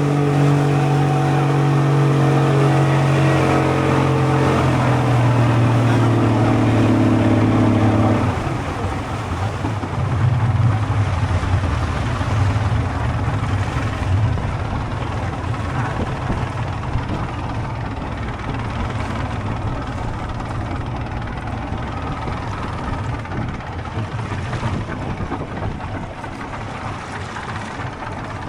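Boat's outboard motor running at steady revs, its pitch shifting slightly a couple of times. About eight seconds in the steady hum cuts off and a rough, rushing rumble of engine, wind and water takes over, slowly fading.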